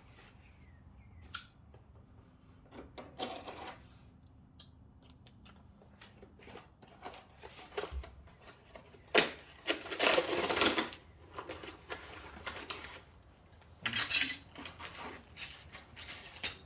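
Loose metal hardware (screws, bolts and caster parts) clinking and rattling as it is handled, with a few louder rustling, scraping bursts.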